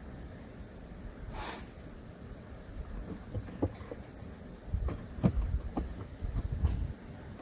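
A steady low rumble, like wind on the microphone, with a brief soft rush about a second and a half in. From about three seconds in come a scatter of light clicks and low thumps, busiest near the end.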